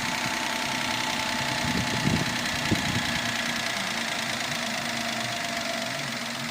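Daihatsu Esse's small three-cylinder engine idling steadily, with a couple of short knocks about two to three seconds in.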